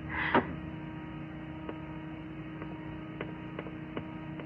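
Faint footsteps on a wooden floor: a few light taps about half a second apart, over a steady low hum.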